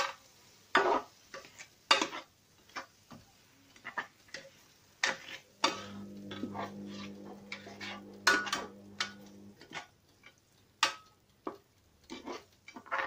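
A cooking utensil stirring, tapping and scraping in a pot of tomato sauce, a string of irregular sharp clicks and knocks. A steady low hum joins in for a few seconds in the middle.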